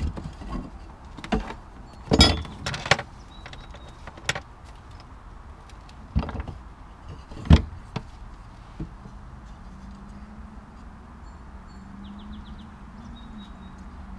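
Pine boards knocking and clattering as pieces of a wooden frame are handled and fitted together, several sharp knocks in the first eight seconds. A faint steady hum comes in after about nine seconds.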